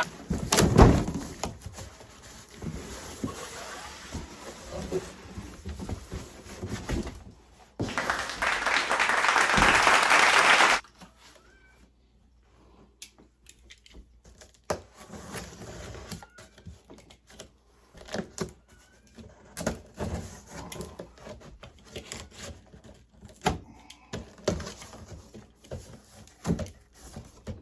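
Cardboard box and packing being handled and opened: a thump, scattered knocks and taps, and about three seconds of loud rustling and scraping of packing material in the middle.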